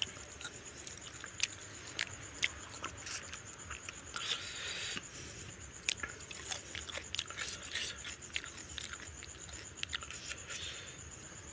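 Close-up eating sounds of fish head curry and rice: wet chewing and mouth clicks, with fingers squelching through the rice and curry and working at the fish head on the plate. Sharp clicks are scattered throughout, with a denser noisy stretch about four seconds in.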